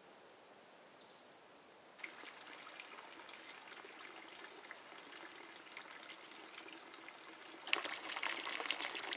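Water trickling and splashing, a noisy patter of many small clicks that starts about two seconds in and gets much louder near the end.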